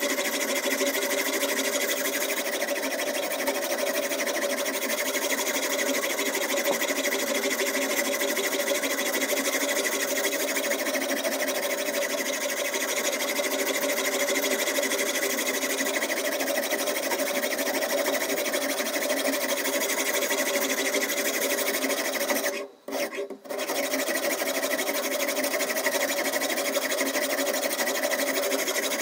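Diamond whetstone on a guided knife sharpener rasping along a steel steak-knife blade: a steady, unbroken grinding with no gaps between strokes. It cuts out for under a second about three-quarters of the way through.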